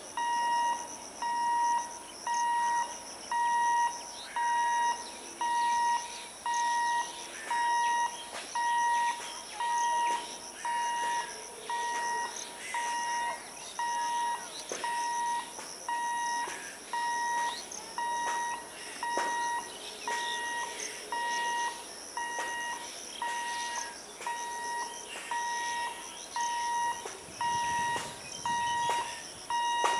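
Level crossing warning alarm sounding a steady high beep that switches on and off about once a second, warning that a train is coming. The approaching EMU train's low rumble rises faintly near the end.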